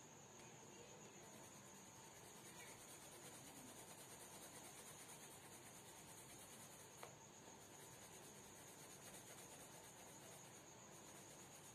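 Near silence: a green coloured pencil shading softly on sketchbook paper, under a faint steady high-pitched trill. There is one small tick about seven seconds in.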